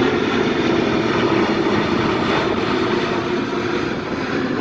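Airplane engine noise passing overhead: a steady, loud rushing noise with no breaks.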